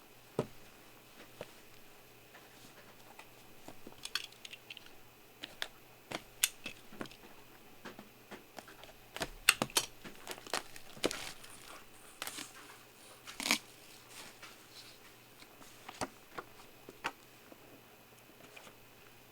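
Trading-card packaging being handled and torn open: scattered clicks, rustles and short crinkling tears, loudest and busiest in the middle.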